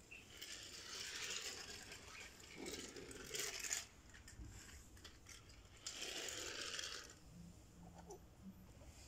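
Small toy train engines pushed by hand along a hard floor, their wheels rattling and scraping in three short runs.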